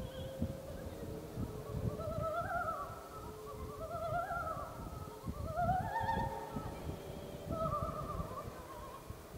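Music with a singing voice in long, wavering notes, over the low buffeting rumble of wind and road noise on a moving motorcycle.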